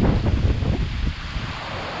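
Strong wind gusts buffeting the microphone over the steady hiss of heavy rain in a severe windstorm; the gusts ease off about a second in, leaving mostly the rain's hiss.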